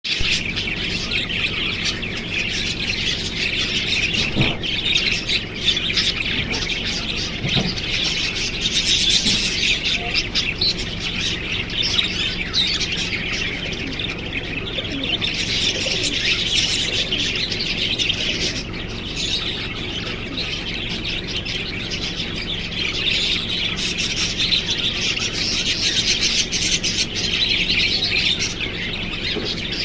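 Small birds chirping continuously, many calls overlapping into a dense, steady chatter.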